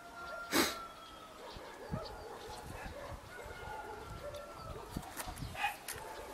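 Two cats yowling in a fight standoff: long, drawn-out, wavering yowls, with a short sharp noise about half a second in and a few shorter cries near the end.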